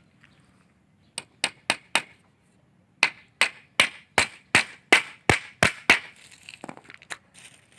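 Nail being hammered into wooden sticks: four quick blows, then after a short pause about nine steady blows, fixing the crosspiece arms of a scarecrow frame.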